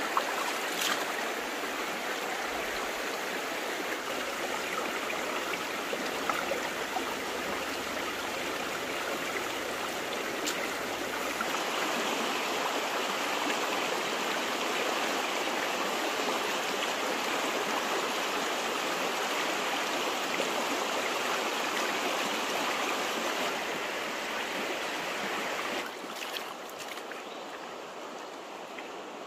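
A stream running: a steady rush of flowing water with a few faint clicks. The rush turns a little brighter about twelve seconds in and drops quieter a few seconds before the end.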